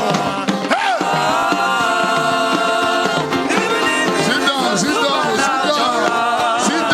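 Slow gospel worship music: a voice singing and chanting in long, gliding phrases without clear words, over sustained instrumental chords.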